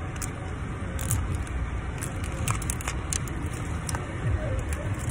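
Plastic Mini Brands capsule balls being handled and twisted open, with scattered small clicks and crackles of plastic, over a steady low rumble inside a car.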